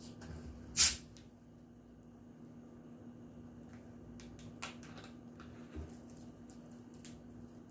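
A short, loud hiss about a second in as a carbonated sparkling-water bottle is opened and its gas escapes, followed by faint small clicks and taps of the bottle and cup being handled.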